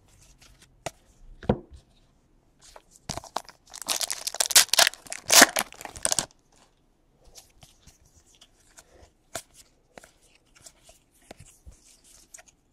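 A foil trading-card pack wrapper being torn open and crinkled, loudest for about two seconds near the middle, with a single knock before it and light clicks of cards being handled afterwards.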